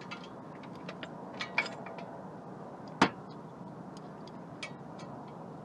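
Torque wrench on the brake caliper bolts: scattered light metallic ticks and taps, with one sharp click about three seconds in.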